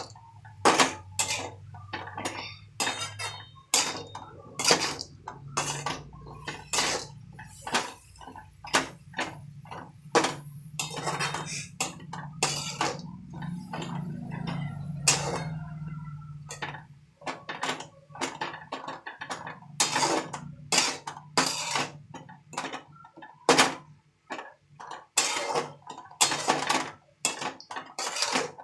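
Metal spatula stirring shredded cabbage in a metal kadhai, scraping and knocking against the pan in irregular clinks about twice a second.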